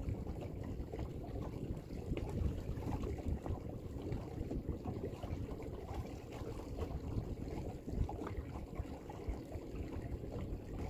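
Water splashing and lapping against a fishing boat's hull, with wind buffeting the microphone as an irregular low rumble.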